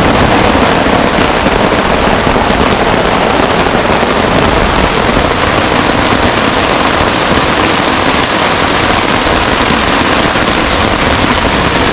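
Heavy rain falling, a loud steady hiss without a break.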